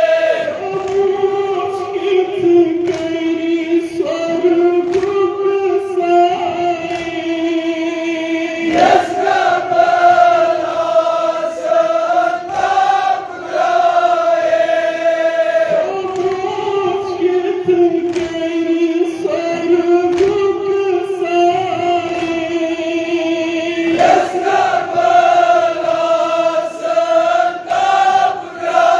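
A group of voices chanting a noha, a Shia mourning lament, in unison on long drawn-out notes, with sharp beats at a steady pace under the singing.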